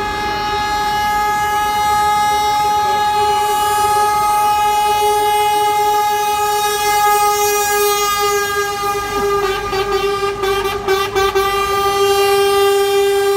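Lorry air horn held in one long, steady, loud note. It breaks up in a few quick stutters about ten seconds in, then holds steady again.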